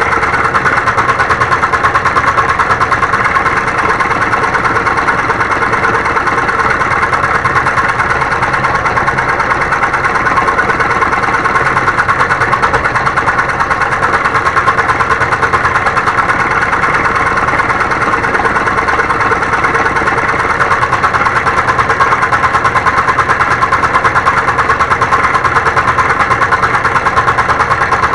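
Homemade motor-driven scroll saw running steadily, its blade stroking up and down in a fast, even chatter as it cuts wood.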